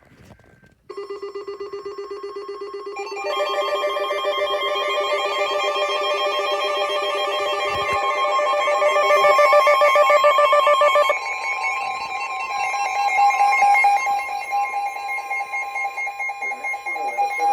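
Emergency alert tones: several electronic tones sounding together, pulsing rapidly, with more tones joining about three seconds in and the mix changing about eleven seconds in.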